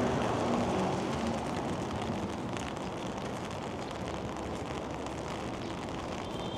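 City street traffic noise: a steady wash of passing vehicles, with a car horn dying away in about the first second.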